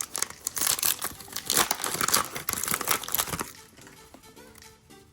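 Panini Score trading card pack wrappers crinkling and tearing as packs are ripped open and handled. The rustling stops about three and a half seconds in, leaving soft background music.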